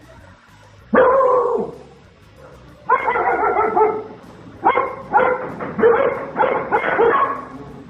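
A dog barking: one bark about a second in, then a run of repeated barks from about three seconds on.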